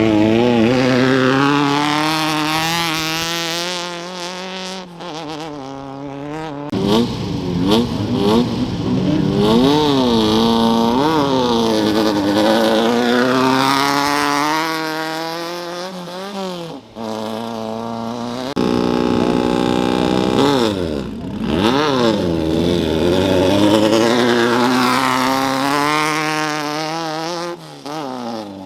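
Off-road desert race vehicles launching off the start line one after another: engines revving hard, their pitch climbing and falling again several times over. About two-thirds of the way through, one engine holds a steady rev for a couple of seconds.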